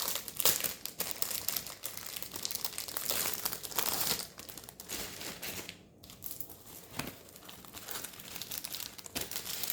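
Diamond painting kit packaging being handled and opened by hand, rustling and crackling in uneven spells, with a brief lull about six seconds in.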